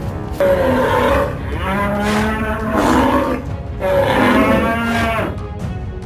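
Cattle bellowing: three long, drawn-out moo calls, the middle one the longest, over background music.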